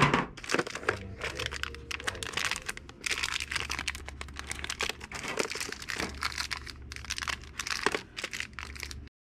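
Plastic retail packaging crinkling and rustling as packaged cutlery cases are handled and pulled off display hooks, in irregular bursts of crackles. It cuts off suddenly near the end.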